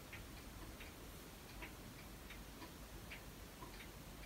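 Faint clock ticking, about two ticks a second, over quiet room tone.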